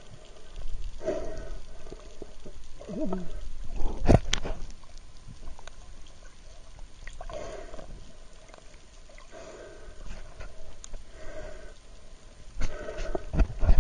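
A snorkeler breathing through a snorkel tube, heard from underwater: muffled, rasping breaths every second or two. A sharp knock comes about four seconds in and another near the end.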